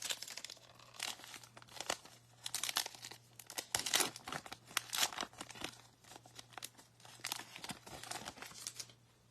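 Foil wrapper of a baseball card pack being torn open and crinkled, then the cards inside being handled, in a run of irregular rustles and crackles.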